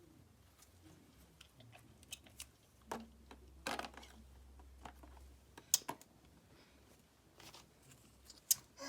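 Scattered faint clicks and taps of small objects being handled, with a few louder ones three to four seconds in and again near six seconds.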